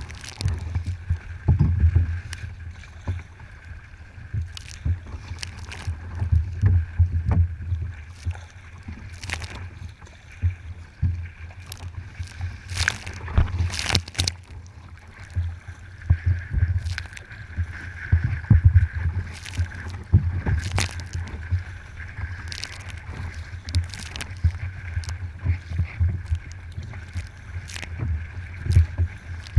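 Kayak paddling on open water: the paddle dips and splashes in repeated strokes and water slaps against the hull, with low thumps every second or two.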